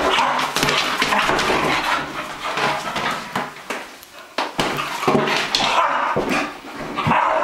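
A beagle scrambling and whining on a tile floor, amid repeated knocks and rubbing from a vinyl exercise ball being rolled and bumped at it.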